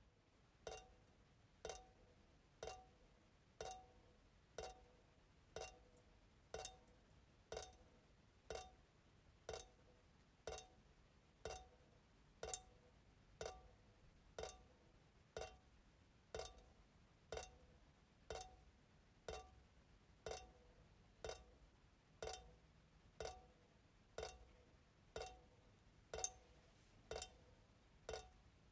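Kitchen faucet dripping into the sink: single drops fall at a steady rate of about one a second, each a short, ringing plink.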